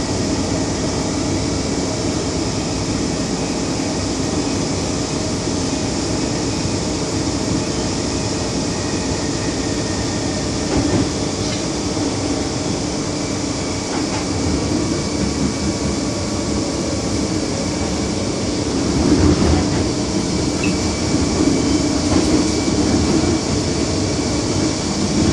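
MTR Kwun Tong Line M-Train (set A113/A130) running between stations, heard from on board: a steady rumble of wheels on rail with a running hum, getting louder about 19 seconds in.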